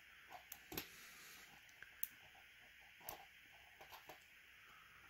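Faint, scattered clicks and light taps of a lock pick probing the pins of a Regal 3035A gun lock, about a dozen over a few seconds. The pins are being checked from the back, with none binding.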